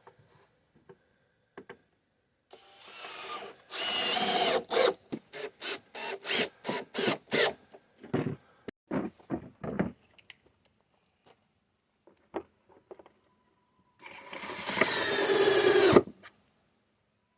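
Handheld power drill run in a series of short trigger bursts, with two longer runs whose pitch rises as the motor spins up, as when driving screws into wood.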